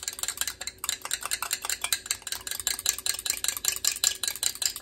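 Metal fork whisking a creamy mayonnaise-based dressing in a small container, the tines striking the sides and bottom in a fast, even run of clicks.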